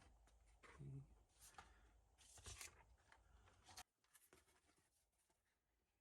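Faint scraping and rustling of paper being handled, with a few light clicks. It stops abruptly about four seconds in, leaving near silence.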